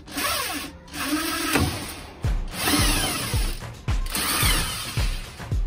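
Cordless electric drill boring a 7 mm pilot hole through the plastic wall of a fuel can, run in about four short bursts with the motor pitch sweeping as the trigger is squeezed and eased. Background music with a steady beat comes in about two seconds in.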